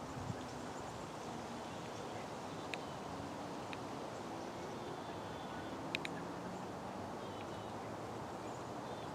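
Steady outdoor background noise with a few faint sharp clicks and faint short chirps.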